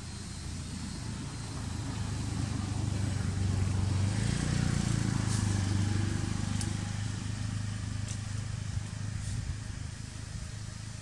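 A motor engine's low, steady hum that swells to its loudest around the middle and then eases off, with a few faint clicks over it.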